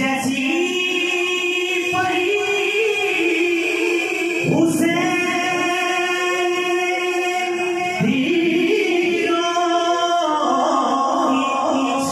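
Unaccompanied male voice singing a naat in long held notes, in three phrases that begin at the start, about four and a half seconds in, and about eight seconds in.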